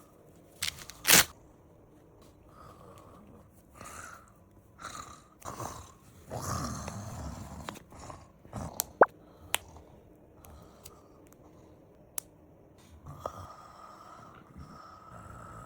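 A sleeping woman snoring and snorting irregularly, the longest and deepest snore about six seconds in. Several sharp clicks come between the breaths; the loudest are near the start and at about nine seconds.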